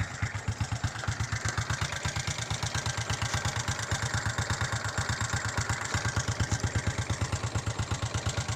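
Honda XRM 125's single-cylinder four-stroke engine idling with an even beat of about eight pulses a second, a sound the owner puts forward as an engine knock.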